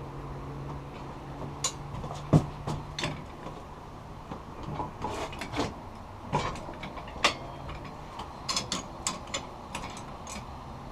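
Scattered metal clanks and knocks as 1/8 inch steel flat bar is handled and worked in a manual compact bender, with a sharp knock about two seconds in, over a steady low hum.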